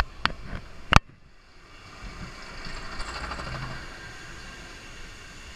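Steel roller coaster train running along its track, heard from on board: three sharp knocks in the first second, then a rush of wheel rumble and wind that builds from about two seconds in and eases slightly near the end.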